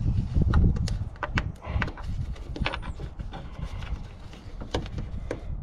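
Plastic clicks and rattles as headlight wiring connectors and push clips are worked loose behind a pulled-out pickup headlight housing, over a low rumble that is strongest in the first second.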